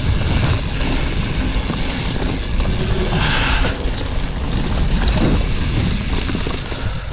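Riding noise from a Cube Stereo 150 Race full-suspension mountain bike on a dirt forest singletrack: a steady, noisy rumble of tyres and bike rattle picked up by the handlebar-mounted camera.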